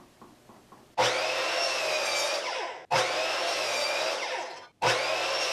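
Craftsman sliding miter saw crosscutting pine 2x4 boards to rough length. Three runs of the saw in quick succession, each starting abruptly with a steady high motor whine; after each of the first two cuts the blade winds down in falling pitch, and the third is still running at the end.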